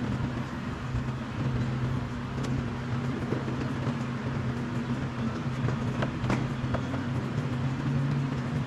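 A steady machine hum, with a low tone and a second tone an octave above it, and a few faint light clicks.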